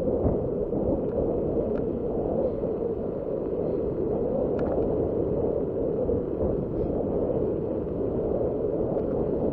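Steady rushing wind and rolling noise on an action camera's microphone while riding a mountain bike, with a few faint ticks.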